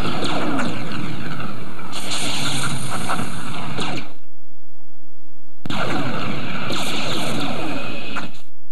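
Lightsaber sound effects: dense, loud swishing and crackling with sliding pitches. It drops twice to a steady low hum alone, for about a second and a half midway and again near the end.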